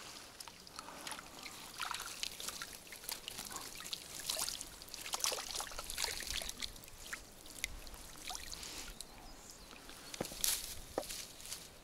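Water trickling and dripping from a mesh keepnet as it is lifted out of the lake and handled, with scattered small clicks and rustles of the net.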